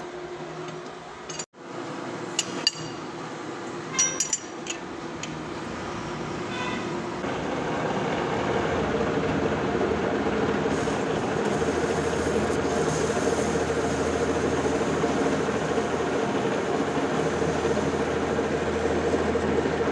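Metal lathe: a few sharp metallic clinks in the first five seconds, then the machine running steadily with a low hum and a held tone, growing louder around seven seconds in and holding.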